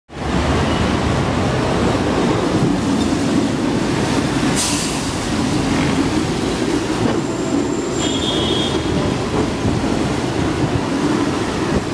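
Hong Kong double-decker tram running on street rails, heard on board: a steady loud rumble and rattle from the bumpy ride. A brief hiss comes about four and a half seconds in, and short high squeals around eight seconds.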